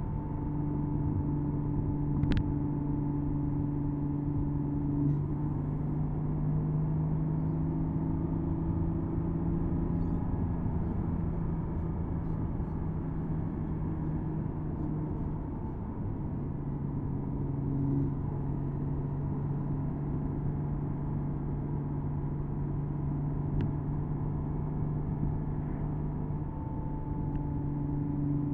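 Porsche Boxster S 987.2's flat-six engine humming steadily at a cruise with the top down, over a bed of road and wind noise. The engine note dips briefly about halfway through, and there are a couple of faint clicks.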